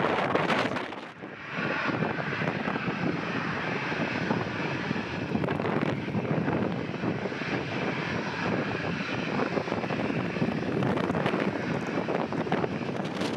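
Boeing 737-800 jet engines (CFM56-7B) running at low taxi thrust, a steady whine over a rushing roar. There is a short drop in level about a second in.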